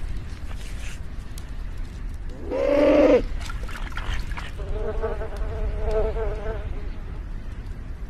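Flies buzzing: one loud buzz with a rising start about two and a half seconds in, then a second, wavering buzz lasting about two seconds, over a low steady rumble.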